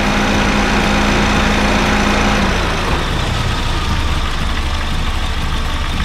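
Honda Fit GD3's 1.5-litre four-cylinder engine idling with the air-conditioning compressor running and making a rumbling (gorogoro) noise, which the mechanic suspects is a slightly worn compressor. A steady hum and hiss cut off about two and a half seconds in, leaving the low idle rumble.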